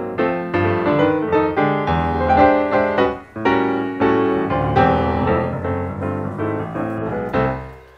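Background piano music, a steady run of notes that fades out near the end.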